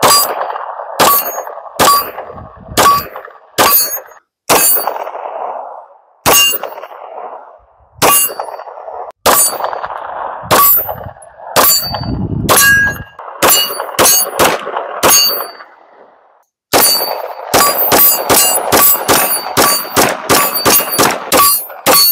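Canik SFX Mete Pro 9mm pistol being fired at steel targets. Each shot is followed by the short ring of the steel plates. Shots come about a second apart at first, then, after a short pause near the end, in a fast string of about three a second.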